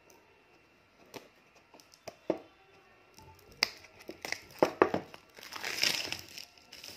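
Thin clear plastic poly bag crinkling and crackling as it is opened and pulled off a product box. A few scattered crackles come at first, then denser, louder crinkling from about halfway through.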